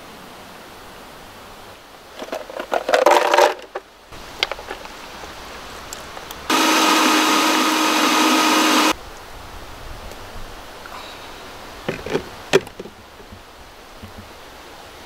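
Countertop blender running for about two and a half seconds, starting and stopping abruptly, as it blends ice into frozen margarita slush. A clatter comes a few seconds before it and a few sharp clicks come after it.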